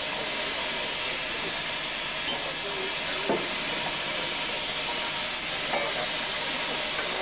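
Steady hiss of steam escaping from a hot steam locomotive. Two sharp knocks, about three and six seconds in, come from tools working in the open smoke box.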